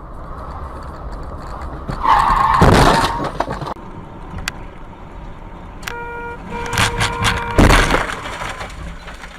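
Dashcam recording of a road collision over steady road noise. About two seconds in, a brief squeal is followed by a loud crash. Near six seconds a car horn sounds, a short blast then a longer one, cut off by a second loud impact about eight seconds in.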